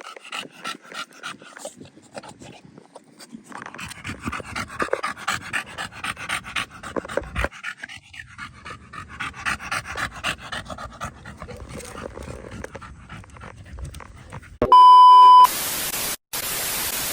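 A dog panting rapidly for most of the stretch. Near the end a loud electronic beep sounds for about half a second, followed by two bursts of harsh static hiss with a brief break between them.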